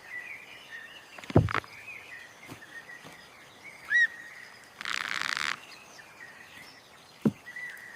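Rainforest ambience with faint bird chirps, one clearer rising-and-falling call about halfway through. Two short thumps and a brief half-second hiss break in.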